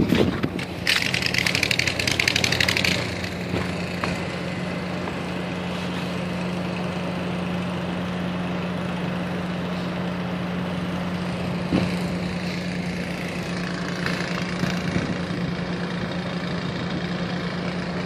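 Steady low mechanical hum of a running motor, like an engine idling. A rapid rattling is heard for about two seconds near the start, and a single short knock comes about twelve seconds in.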